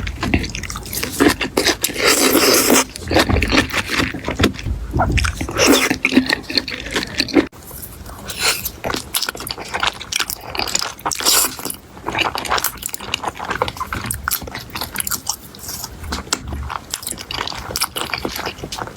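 Close-miked eating: a person biting and chewing food, with a dense run of short wet clicks and smacks, louder for the first seven seconds or so and softer after.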